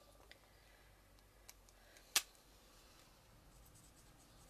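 Faint scratching of an alcohol blending marker colouring on card, with a single sharp click about two seconds in.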